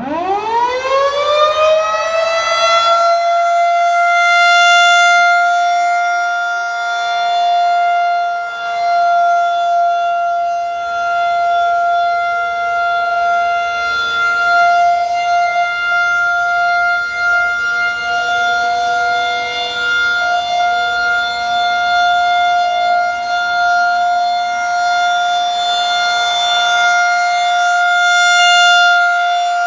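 Federal Signal 2001-130 electromechanical tornado siren winding up from silence to full pitch in about three seconds, then sounding a steady single tone. Its loudness swells and dips slightly as the rotating head sweeps past.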